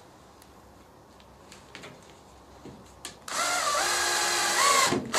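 Cordless drill-driver driving a screw through aluminium angle into a wooden support. A few light clicks come first, then the motor runs loudly for about a second and a half, its whine stepping up and down in pitch.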